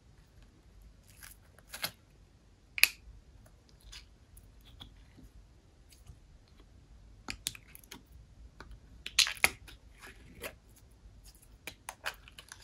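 Slime being squished and worked by hand: scattered sticky clicks and pops, the loudest one about three seconds in and a quick cluster about nine seconds in.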